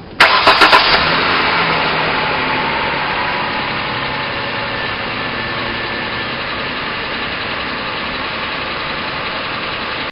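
2006 Hyundai Sonata's 3.3-litre V6 starting after a brief crank, a few quick pulses about a quarter second in, then idling steadily with the level easing slightly as it settles. It is running on freshly fitted spark plugs and a new PCV valve.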